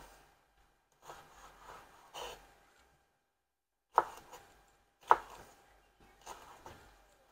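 Chef's knife slicing sweet peppers into strips on a wooden cutting board: a series of soft cutting strokes, with two sharp knocks of the blade on the board about four and five seconds in.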